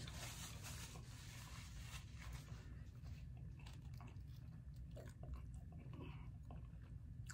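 Faint chewing and small mouth clicks of a person eating, over a low steady hum.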